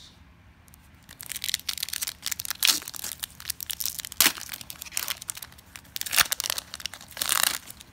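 Foil wrapper of a Pokémon trading card booster pack being torn open and crinkled: a run of irregular crackles and rips that starts about a second in.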